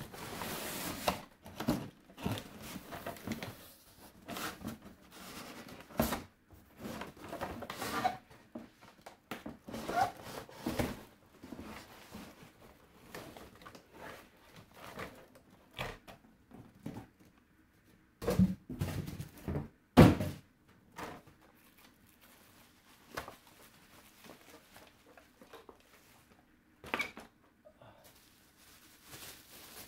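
Irregular knocks, thunks and rustling from handling the packaged parts of a new RC stadium truck during unboxing; one sharp knock about two-thirds of the way through is the loudest.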